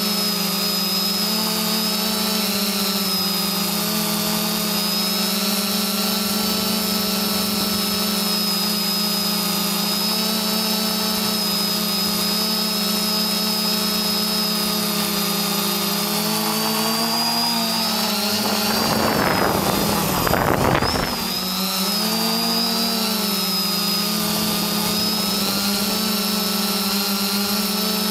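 Small camera drone's motors and propellers whining at a steady pitch. About two-thirds of the way through, the pitch wavers and dips, with a brief rush of noise.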